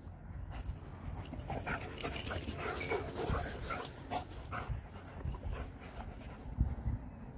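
Several dogs play-wrestling and vocalising, busiest from about a second and a half to five seconds in.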